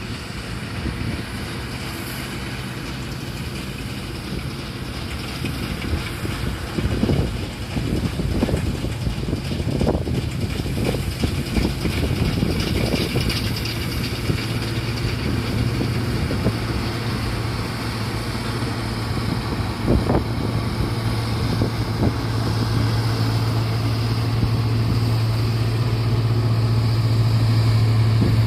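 John Deere combine harvester running steadily with a constant low engine hum, with a few sharp knocks and clatters in the first half and gradually getting louder near the end.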